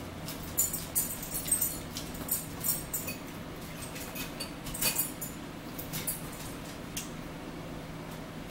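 Eating sounds close to the microphone: chewing a spinach and egg salad, with scattered sharp clicks and crackles of forks on plates. A low steady hum sits underneath.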